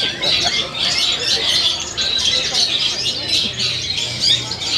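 Long-tailed shrikes (cendet) singing: a dense, unbroken run of rapid high chirps and twitters.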